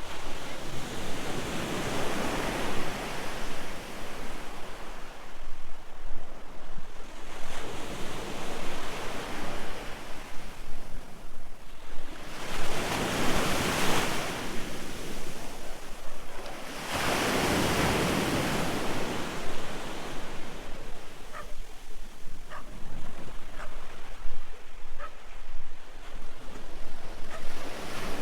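Sea waves breaking and washing up the shore, the surf swelling and falling away every few seconds, with wind rumbling on the microphone.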